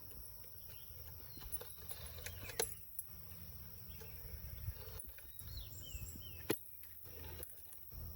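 Quiet outdoor ambience: a steady high insect drone over a low rumble, with a few sharp clicks and some short falling chirps about five and a half seconds in.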